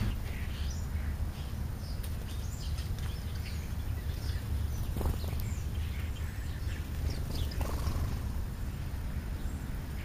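Scattered short chirps from house sparrows, over a steady low rumble.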